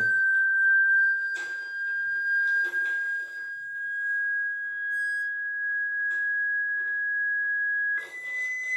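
A loud, steady, high-pitched electronic test tone, a single pure pitch held for about eight seconds. Near the end it steps up to a higher pitch. Such a tone is used to set a surface vibrating so that the sound forms a visible pattern.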